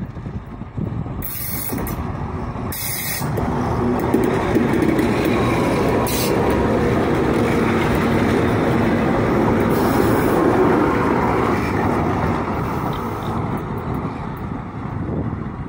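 Two-section 2TE10MK diesel locomotive running light past at close range: the engines run and the wheels roll on the rails, growing louder as it approaches, loudest while it passes, then fading as it draws away. Brief hisses come about one and three seconds in.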